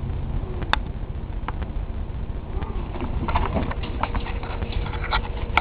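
A dog and a cat scuffling in play: scattered light clicks and taps, busier in the second half, over a steady low rumble.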